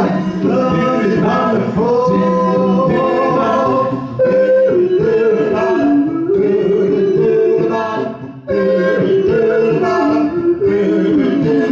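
Live doo-wop vocal group of four singing into microphones in close harmony, largely unaccompanied, with two short breaks in the singing about four and eight seconds in.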